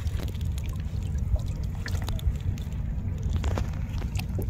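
Water dripping and trickling off a wet fishing net as it is hauled by hand into a wooden boat, in scattered small drips over a steady low rumble.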